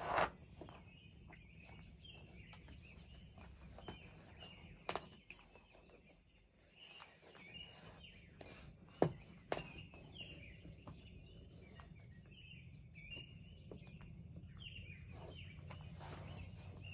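Birds chirping and singing, the chirps repeating steadily throughout, with a few sharp clicks or knocks (the loudest near the start and about nine seconds in) over a faint low rumble.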